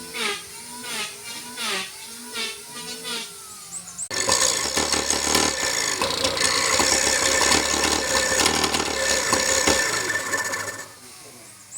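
A wailing, voice-like sound rises and falls for about four seconds. Then a woodturning tool cuts abruptly into wood spinning on a lathe: a loud, dense scraping with rapid clicks and rattles for about six seconds, which fades out near the end.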